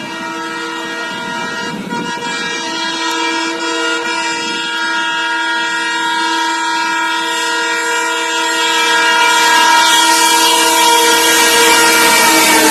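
Locomotive air horn of the 12562 Swatantrata Senani Superfast Express sounding one long, continuous multi-tone blast as the train approaches, growing steadily louder while the rush of the running train builds under it. Right at the end the horn's pitch starts to fall as the train passes.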